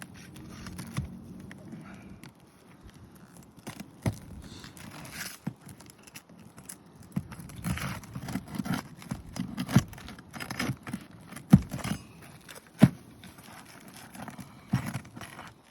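A hand tool scraping and prying under asphalt roof shingles to work the nails loose, with irregular scraping and about half a dozen sharp knocks.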